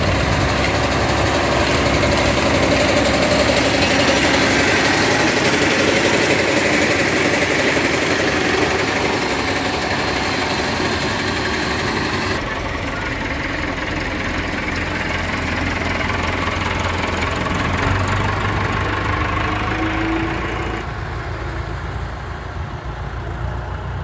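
Tractor engine running while it drives a side-mounted lavender harvester through the rows, a steady mechanical din. The sound shifts abruptly about halfway through and again near the end.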